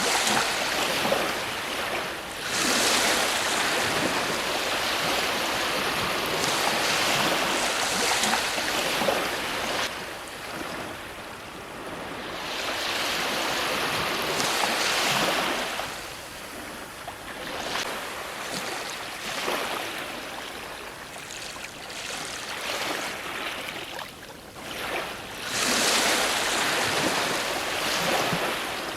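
Ocean surf: waves breaking and washing up the shore in repeated swells that rise and fall every few seconds, with the biggest surges about three seconds in and again near the end.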